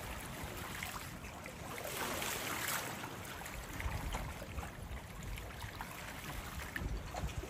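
Small sea waves lapping and splashing: a steady wash of water with many little splashes through it.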